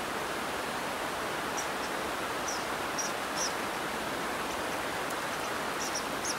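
Steady rushing of river water, with a few faint, short, high chirps scattered over it, clustered around three seconds in and again near the end.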